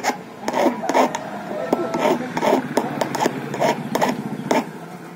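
Small hand file rasping across a metal key blank in short, even strokes, about two a second: a replacement car key being cut by hand.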